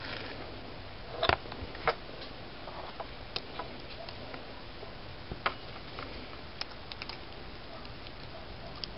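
Small metal parts of an RC car differential clicking and tapping now and then as it is taken apart by hand: a few sharp, separate clicks, the loudest about a second in.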